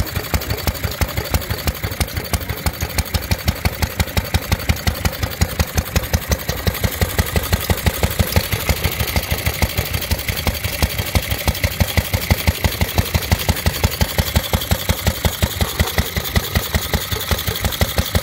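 Small air-cooled hit-and-miss engine, a 1920s-era vertical-cylinder type, running with a steady, rapid rhythm of exhaust beats, several a second.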